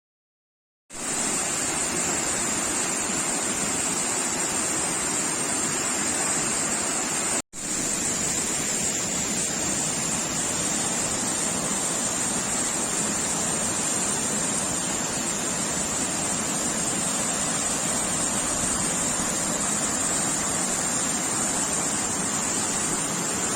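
Waterfall, water rushing and splashing in a steady, loud wash of noise with a steady high hiss above it. The sound starts about a second in and drops out for a split second partway through.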